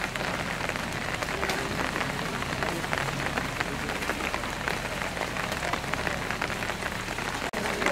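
Steady rain falling, with many separate drops striking close by. The sound briefly cuts out near the end.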